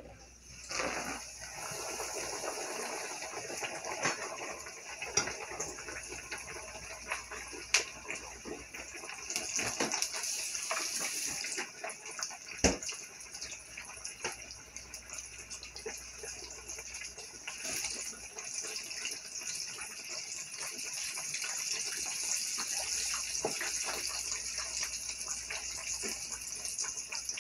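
Breaded red snapper fillet frying in a skillet of hot oil: a steady sizzle that starts as the fillet is laid in, with a few sharp pops of spattering oil.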